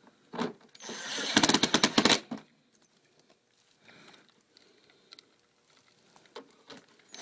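A screwdriver driving a small Phillips screw into the scooter's plastic headlight housing: a rapid run of clicks lasting about a second, beginning about a second in. Lighter handling ticks come before and after it.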